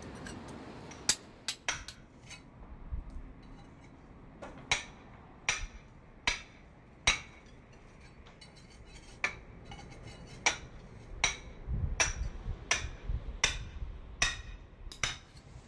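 Club hammer striking a thin plugging chisel, raking old mortar out of brick joints by hand: a run of sharp taps, a little over one a second, with a short pause in the middle.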